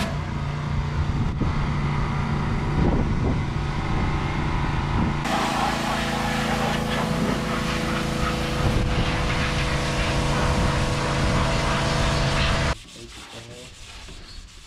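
Pressure washer running steadily, its motor hum under the hiss of the water jet spraying the van's bodywork. Near the end the sound stops abruptly, leaving a much quieter background.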